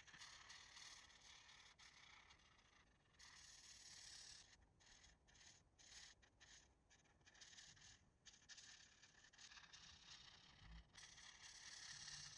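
Faint scratching of a felt-tip marker rubbing back and forth on colouring-book paper, in runs of strokes broken by short pauses.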